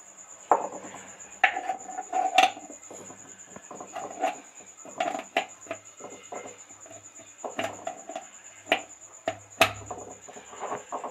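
Handling of a glass jar of ground spice and its plastic screw lid: irregular clinks, knocks and scrapes of glass and plastic as the lid is put back on and screwed down, with a few sharp clinks standing out.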